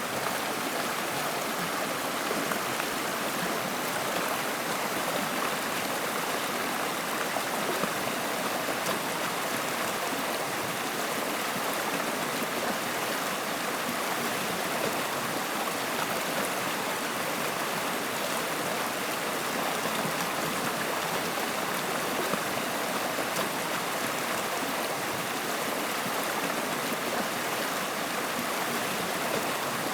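Water running steadily in a stream, an even, unbroken sound with no pauses or changes.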